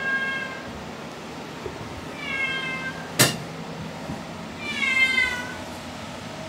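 A domestic cat meowing loudly three times, the third call the longest: the calling of a lonely cat looking for its owners. A single sharp knock just after the second meow is the loudest sound.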